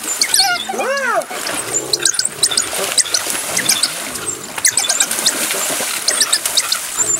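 A din of high-pitched twittering and squealing calls from a wild dog pack and spotted hyenas, over splashing water. About a second in, one loud squeal rises and falls in pitch.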